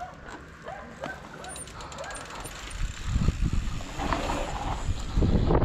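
A dog barking repeatedly in the distance, about two barks a second, for the first couple of seconds. Then wind and dirt-trail tyre rumble build and grow louder as the mountain bikes pick up speed downhill.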